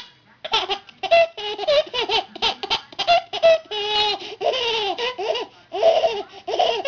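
A baby laughing hysterically: a long string of quick, high-pitched laughs, about three a second, starting about half a second in.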